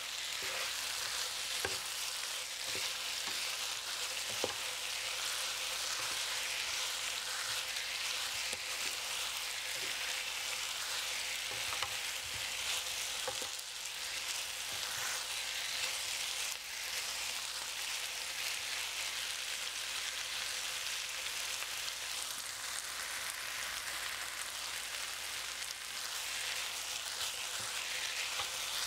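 Tofu and tempeh sizzling steadily in a thick sauce in a nonstick frying pan while a spatula stirs them, with a few light knocks of the spatula against the pan, mostly in the first half.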